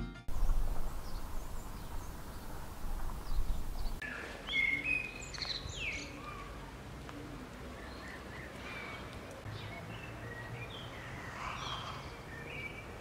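Outdoor garden ambience: a low steady background noise with small songbirds chirping and tweeting, the chirps starting about four seconds in and coming again near the end.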